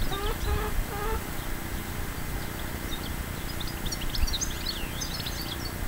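An insect buzzing close by for about the first second. Then a run of quick, high bird chirps from about three and a half to five and a half seconds in, over a low rumble.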